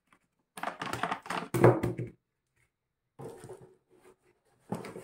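Plastic clicking and rattling as a segmented flexible shaft extension is lifted out of its moulded plastic tool case and set down on a table, in three short bursts.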